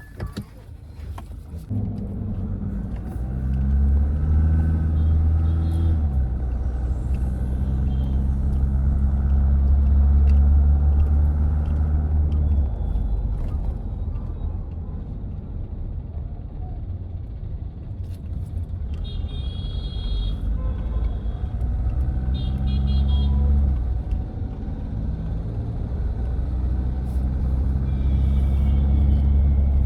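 Mahindra Scorpio-N SUV's engine running under way with a steady low rumble, swelling in several surges as it pulls. Two short high-pitched tones sound a little past the middle.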